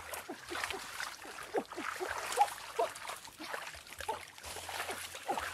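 Shallow muddy stream water splashing and sloshing as a person crawls through it on hands and knees, with a few sharper splashes. Many short falling squeaks sound through it, several a second.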